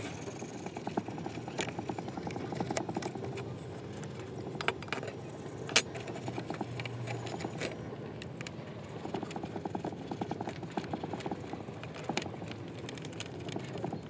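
Toothbrush bristles scrubbing small metal igniter parts: fast, rasping back-and-forth strokes in long runs, pausing briefly about halfway, with a sharp tap about six seconds in.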